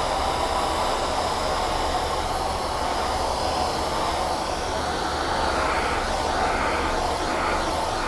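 Miele Complete C3 Brilliant canister vacuum running steadily, its hard floor tool being pushed back and forth over a hard floor to pick up fine sand and breakfast cereal.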